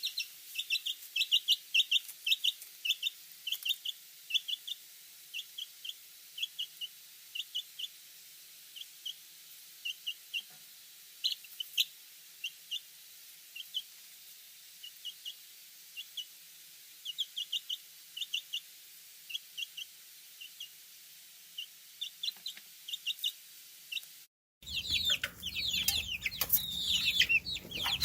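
Baby chicks peeping: short high peeps in quick runs of two to five, with gaps between the runs. After a brief cut about 24 seconds in, a much louder, denser chorus of many chicks peeping over one another takes over.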